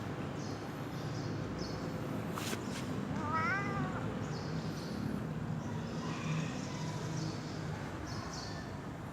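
A cat gives one short, wavering meow about three seconds in, over a steady low background rumble.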